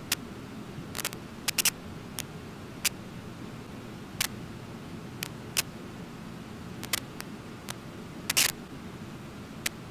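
Steady low rush of a waterfall, with about a dozen sharp, irregular clicks of camera shutters over it. A short rapid burst of clicks about eight seconds in is the loudest sound.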